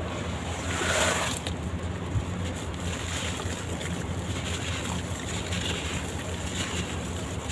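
Soaked charcoal and sand-cement blocks crumbling in water: soft, wet, swishy crumbling over a steady low hum, with a slightly louder swell about a second in.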